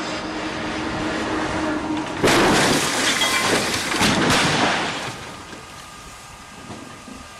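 A dump truck's engine grows louder as it closes in, then a loud crash as it slams into a semi-trailer about two seconds in. A second loud burst follows about two seconds later as the wreck goes up in a fireball, then the noise dies down to a rumble.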